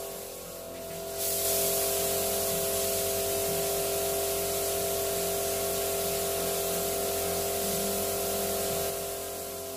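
Air-fed spray gun hissing as it sprays freshly mixed two-pack paint (hardener and reducer added), in long passes that break off briefly about a second in and again near the end.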